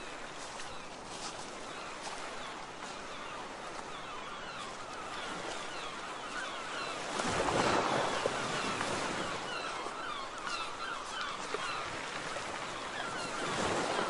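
Sea waves washing on a rocky shore, with many gulls calling over them throughout. A louder rush of noise swells up about seven seconds in.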